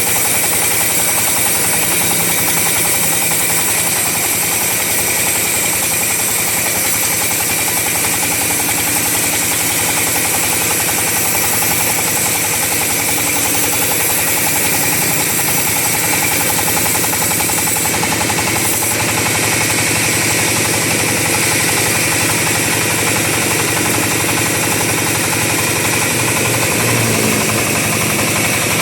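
Chainsaw running steadily while cutting through a teak log, with a brief break in its sound about eighteen seconds in.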